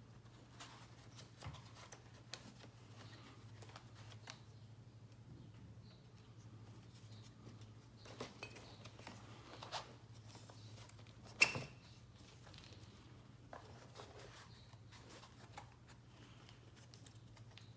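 Webbing straps being threaded and pulled through the slots of a rigid MOLLE panel: faint scattered rustles and ticks of handling, with one sharper click about eleven seconds in, over a low steady hum.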